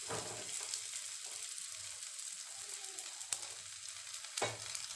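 Spinach paratha frying in ghee on a hot pan: a steady sizzling hiss with small crackles, and two sharp clicks in the second half.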